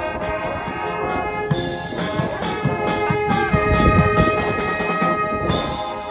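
A live brass band playing: brass instruments including tubas and trumpets sound held chords over a drum kit and bass drum, with cymbal strokes. From about halfway through the band holds a long chord.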